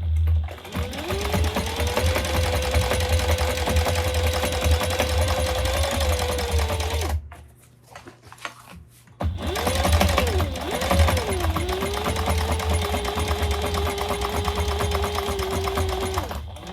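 Sailrite sewing machine stitching in two long runs with a pause of about two seconds between them. The motor speeds up as the first run starts, and surges and slows a few times early in the second run before settling to a steady pace.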